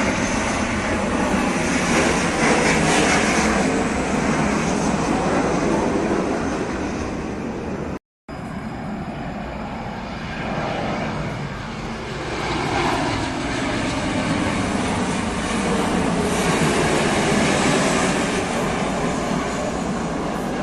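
Jet airliner engines on final approach, a loud steady roar that swells as the aircraft passes. It cuts out for a moment about eight seconds in, then resumes.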